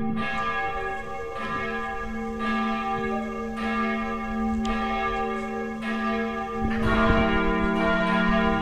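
Church bells ringing, struck about once a second with long, ringing decays. Near the end a second, deeper bell joins and the peal grows louder.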